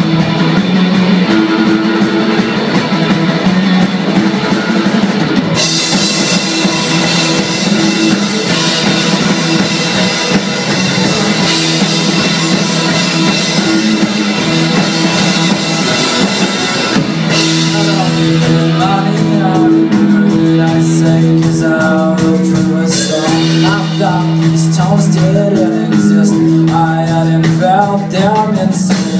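Live rock band playing loud: electric guitars, bass and drum kit. Cymbals crash heavily through the middle, then a wavering melodic line comes forward over sustained low notes in the second half.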